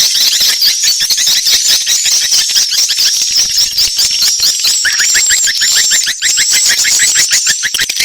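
Swiftlet lure call recording of edible-nest swiftlets: a dense, rapid stream of high chirps and twitters in overlapping layers. About five seconds in, a second, lower series of quick falling chirps joins.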